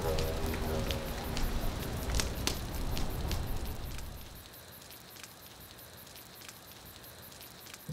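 Irregular crackling clicks over a low rumble; the rumble fades out about four seconds in, leaving a fainter crackle.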